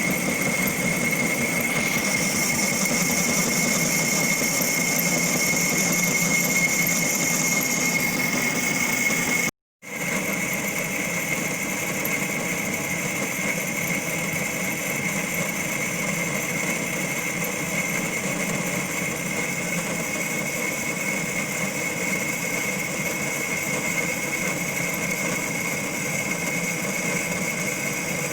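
Logan 12-inch metal lathe running steadily with a constant high whine. The sound cuts out for an instant about ten seconds in, then carries on unchanged.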